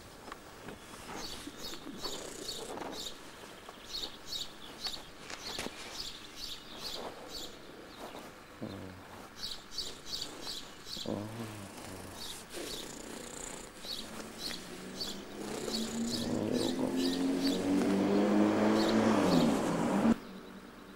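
Small birds chirping repeatedly in short high notes. Over the last several seconds an engine-like drone builds up to the loudest sound, then cuts off abruptly.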